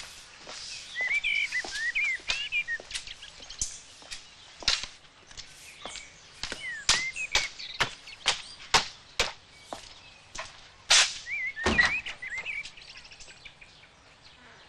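Footsteps in hard shoes and the taps of a walking cane on cobblestones, an irregular run of sharp clicks, with birds chirping in short bursts about a second in and again near the end. About twelve seconds in there is one louder, deeper knock.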